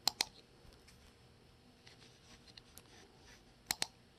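Computer mouse button clicked twice, each click a sharp press-and-release pair: one right at the start and one near the end, with a few faint ticks in between.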